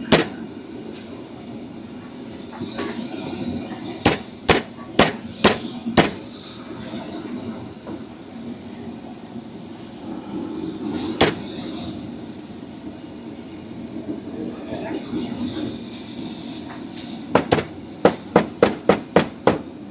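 Cleaver chopping on a chopping block: a run of about six sharp chops a couple of seconds in, a single chop near the middle, and a faster run of about eight chops near the end, over a murmur of voices.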